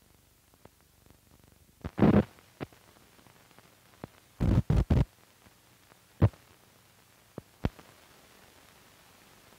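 Pops, thumps and clicks from an old film print's soundtrack running over the head leader, above a low hiss: a burst of thumps about two seconds in, three in quick succession near the middle, then a sharp pop and a few smaller clicks.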